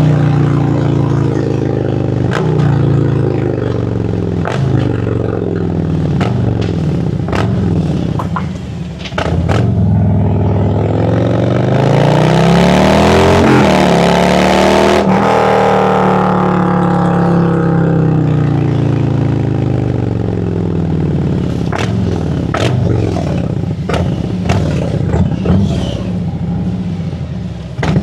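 2017 Harley-Davidson Road Glide Special's Milwaukee-Eight 107 V-twin running under way, heard close from the rider's seat. The engine note climbs to a peak about halfway through as the bike accelerates, then drops away as it eases off. Short sharp clicks come through at intervals.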